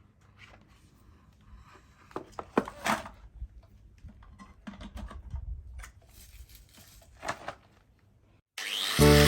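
Scattered light clicks and knocks of hand work in a small room, a few louder ones around two to three seconds in. Near the end a loud hiss starts together with music.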